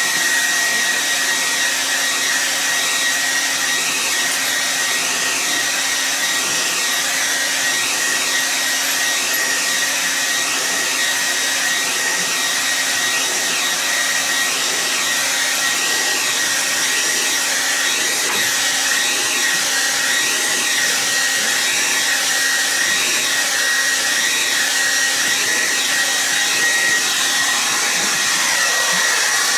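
Handheld hair dryer running steadily, blowing with a constant high whine over the rush of air, aimed at a baby goat to warm it.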